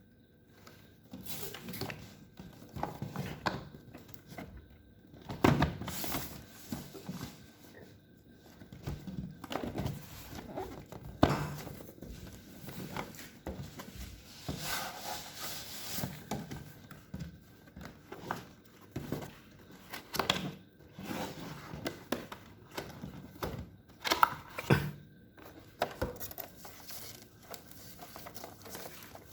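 A keyboard's packaging being handled and opened: irregular thunks of cardboard set down and knocked, with plastic or paper crinkling and a longer rustle about halfway through.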